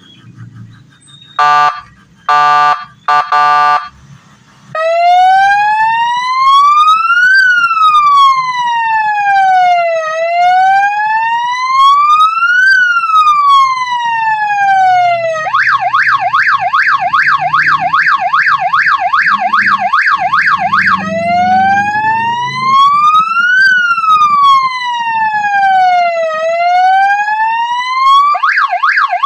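12-volt three-tone police-style siren horn (toa) for a motorbike, run through its tones: a few short horn blasts, then a slow wail rising and falling about every five seconds. Partway through it switches to a rapid yelp, goes back to the slow wail, and the yelp returns near the end.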